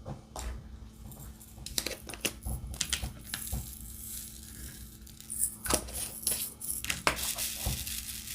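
Irregular small hard clicks and rattles of diamond-painting drills being picked up and set down with the applicator pen.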